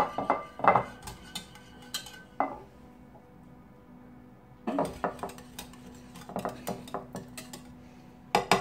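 Metal wire whisk beating yogurt in a ceramic bowl, with rapid clinks and scrapes of the wires against the bowl. The whisking stops for about two seconds in the middle, then starts again.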